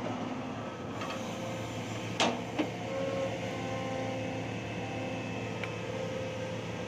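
Hitachi hydraulic excavator's diesel engine running steadily as the bucket digs soil, with two sharp knocks about two seconds in.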